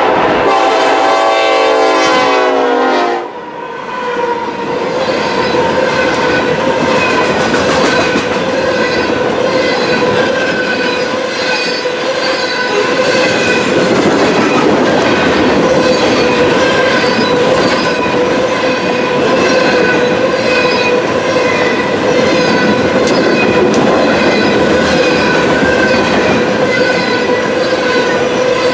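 A BNSF diesel freight locomotive sounds its air horn as it passes, and the horn cuts off about three seconds in. A long train of coal hopper cars then rolls by close at hand, with steady wheel noise, a held squeal from the wheels, and a rhythmic clicking of wheels over the rail joints.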